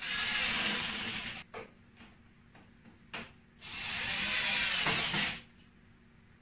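Cordless drill-driver running twice, each run about a second and a half, driving screws to fix a box onto the steel shelf of the stand; a few short clicks of handling come between the runs.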